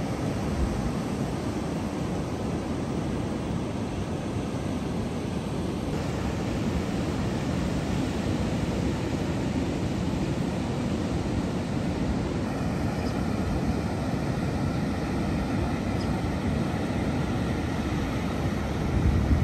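Ocean surf washing onto a sandy beach: a steady, even rush of breaking waves, with a brief low bump near the end.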